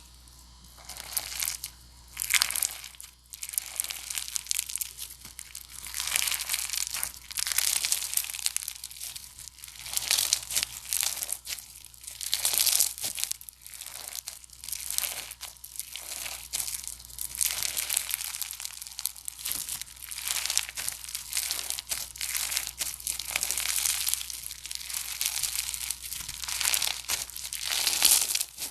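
Slime being squeezed and stretched by hand, giving a dense, crinkly crackling that swells and eases in waves every second or two, after a quiet first second.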